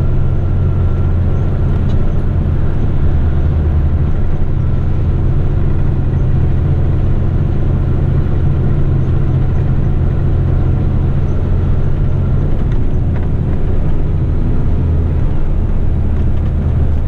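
Heavy rigid truck's diesel engine and drivetrain running steadily while driving, a loud, even low drone.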